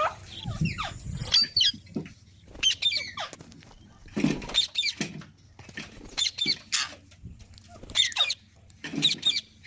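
A group of parrots squawking: a string of short, harsh, high-pitched calls, one every half second to a second, from more than one bird.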